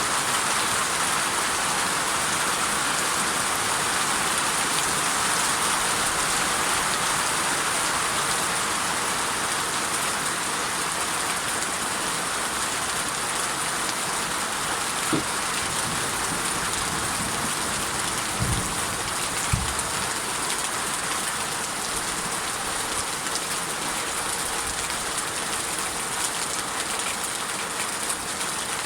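Steady rain falling hard and evenly, with a few dull knocks of heavier drops about halfway through.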